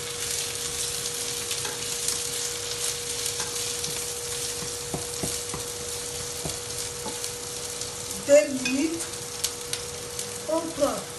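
Sliced onions sizzling in hot oil in a frying pan as they are stirred with a spatula, with light clicks and scrapes of the spatula on the pan. A faint steady hum runs underneath, and a few short louder sounds come about eight seconds in and near the end.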